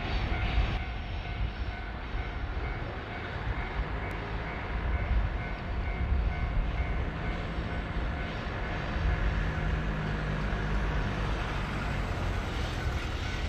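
JR Freight EF200 electric locomotive hauling a container freight train, approaching and drawing close with a steady rumble of running gear and wheels on the rails.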